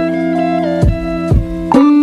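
Instrumental background music: plucked-string notes, struck about twice a second, over a bass line.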